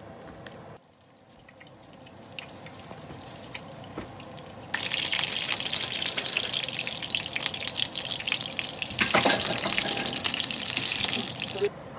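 Spring rolls sizzling in oil in a frying pan, a steady hiss with fine crackling that starts suddenly about five seconds in, grows louder about nine seconds in, and cuts off just before the end.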